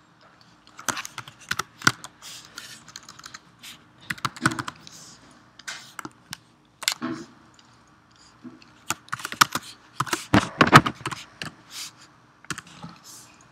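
Typing on a computer keyboard: irregular runs of keystrokes with short pauses between them, busiest around ten seconds in.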